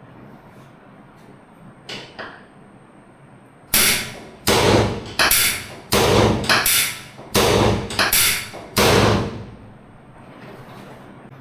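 A series of about eight heavy thumps, roughly one every two-thirds of a second, each dying away quickly. Two lighter knocks come a couple of seconds before them.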